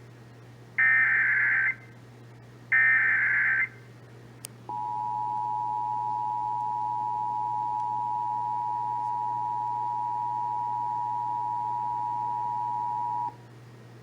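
Emergency Alert System tones: the last two of the three SAME header data bursts, each a buzzy electronic warble lasting about a second, then a click and the EAS two-tone attention signal, two steady tones sounded together, held for about eight and a half seconds before cutting off. The tones announce an emergency alert broadcast.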